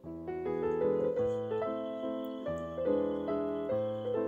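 Background piano music: a simple melody of held notes changing two or three times a second.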